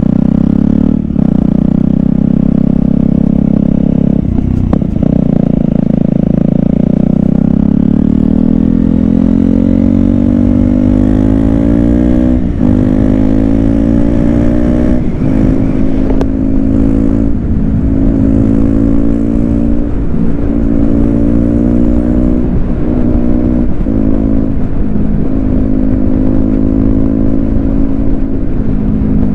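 KTM Duke 125's single-cylinder four-stroke engine on the move: it runs steadily at low revs, then the pitch climbs from about eight seconds in. Several brief dips in revs follow, and it settles into a steady higher-revving cruise for the last several seconds.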